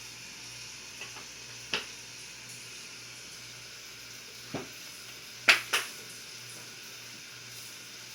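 Five short, sharp taps and knocks over a steady hiss, with two loud ones in quick succession about five and a half seconds in.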